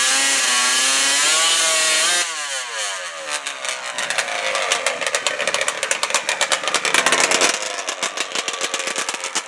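A high-revving ATV engine, its pitch rising and wavering, then falling away after a sudden change about two seconds in. A fast crackling rattle of sharp pops follows for the rest of the time.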